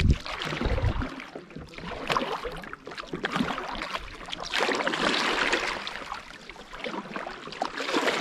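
Kayak paddles dipping and splashing in river water, stroke after stroke, with a couple of low thumps in the first second.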